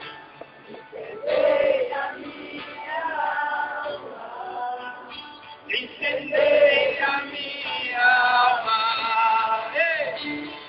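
A Christian worship song sung by male and female voices, with long held notes.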